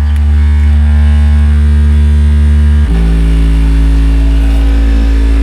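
Very loud held bass notes from a car sound system driven by a Taramps 400 W amplifier. One deep note steps down to a lower one about three seconds in, with a buzzy spread of overtones above it.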